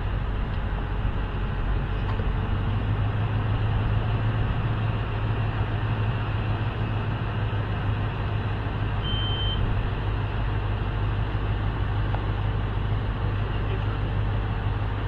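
An engine runs steadily at an even speed: a constant low hum under a rushing noise. A brief high beep comes about nine seconds in.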